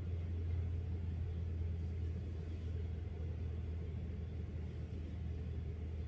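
A steady low rumble that holds at an even level, with no speech.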